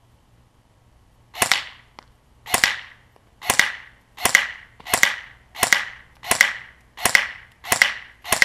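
Elite Force M4 CQB electric airsoft rifle firing single semi-automatic shots. There are about ten, each a sharp crack with a short tail. They start about a second and a half in and come roughly one a second.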